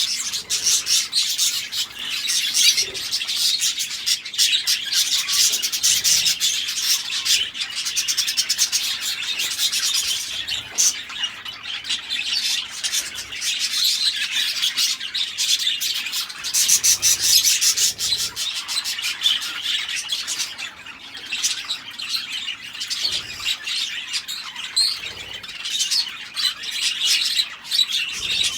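A group of budgerigars chattering and chirping non-stop, a dense high twittering.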